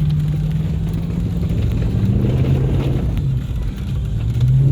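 Jeep engine running under load off-road, its revs rising and falling several times, with a rush of noise about two seconds in.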